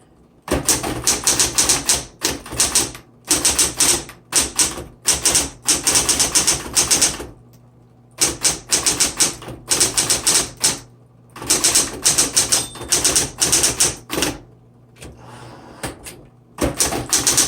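Smith Corona Electra 120 electric typewriter being typed on quickly: runs of rapid key strikes broken by a few short pauses, with the machine's steady motor hum underneath.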